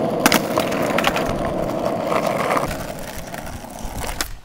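Skateboard wheels rolling on asphalt, with a couple of sharp clacks from the wooden deck as a flip trick comes down near the start; the rolling dies away over the last second or so.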